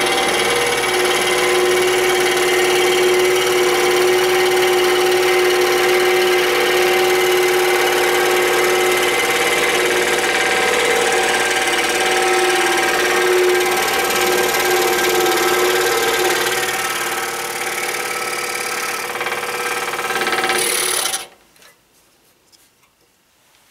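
Excalibur scroll saw running steadily, its blade stroking up and down as it cuts through a block of wood. The saw stops suddenly about 21 seconds in, once the cut is finished.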